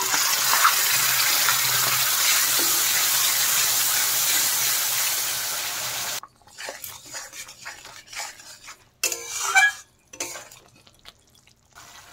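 Yoghurt and spice paste sizzling in hot mustard oil in a kadai as it is stirred, stopping suddenly about six seconds in. After that a metal spatula scrapes the thickening masala against the pan in short, uneven strokes, with quiet gaps between them.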